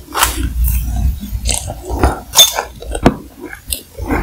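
Close-miked bite into a cream-filled macaron, then chewing it with the mouth closed. The chewing gives irregular soft crunches and mouth clicks.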